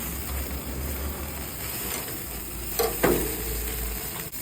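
Meat sizzling steadily on a barbecue grill, with a brief clatter about three seconds in.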